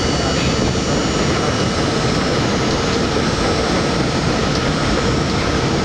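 New York City subway J train running at speed along the elevated steel structure, heard from inside the front car: a loud, steady rumble of wheels on rail with a few faint steady high tones above it.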